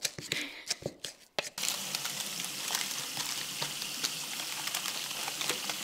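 Wooden spatula scraping and tapping against a bowl as it stirs a crumbly biscuit base, then pressing the base into a paper-lined tin. About a second and a half in, a steady hiss starts abruptly and stays under the light scrapes.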